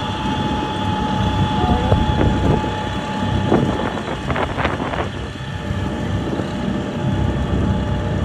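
A vehicle driving slowly, with a steady low rumble of engine and tyres and wind on the microphone. A faint steady whine fades out about three seconds in.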